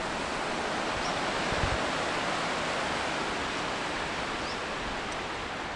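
Steady wash of gentle surf on a sandy beach, with a soft low thump about one and a half seconds in.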